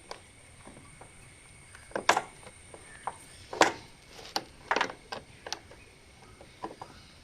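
Pliers and a motorcycle's battery cover clicking and knocking as the cover is worked into place: a scatter of short, sharp clicks, the loudest about two and three and a half seconds in.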